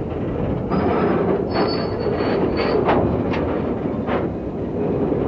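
Coal hopper cars rolling slowly along the track, a steady rumble of wheels and trucks. A thin high wheel squeal runs from about a second in to nearly three seconds, followed by a few short sharp squeaks or clanks.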